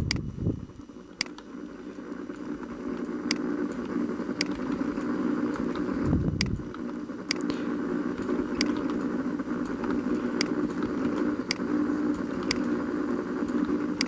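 Computer keyboard and mouse clicks, roughly one a second, as an editor steps frame by frame through a timeline. A steady hum lies under them, and there is a low thump near the start and another about six seconds in.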